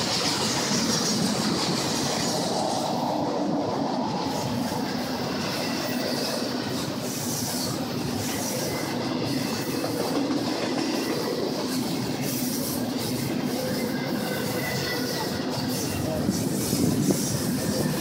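Double-stack container freight train rolling past close by: a steady rumble and clatter of wheels on rail joints, with faint wheel squeal in the second half.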